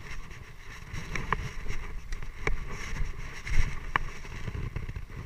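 Low rumbling wind and handling noise on a body-worn camera's microphone as the wearer moves about, with a few short sharp clicks scattered through.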